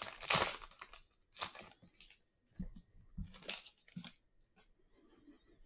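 Foil trading-card pack wrapper being torn open and crinkled in several quick bursts over the first four seconds, then only a few faint clicks as the cards are handled.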